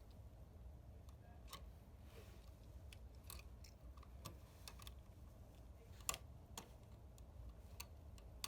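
Faint, scattered clicks and light scrapes of a screwdriver turning a terminal screw on an electrical outlet to clamp a wire, with one sharper click about six seconds in.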